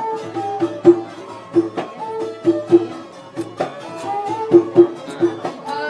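Traditional music: a plucked-string melody over repeated percussive strikes.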